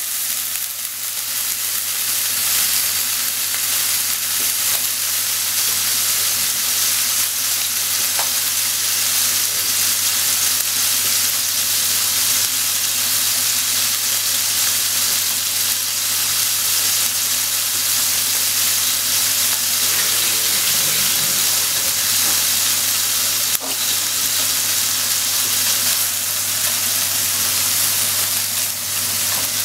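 Squid and sliced onion sizzling in hot oil in a frying pan, a steady frying hiss, with wooden chopsticks stirring and scraping the pan now and then. A low steady hum runs underneath.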